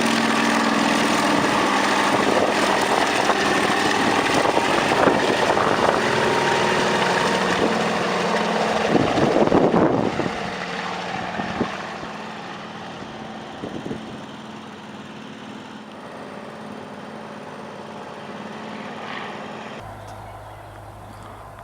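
Old helicopter running during a start-up after long storage: engine and rotor noise with steady whining tones, loud for the first half and then dropping away; the sound changes abruptly near the end.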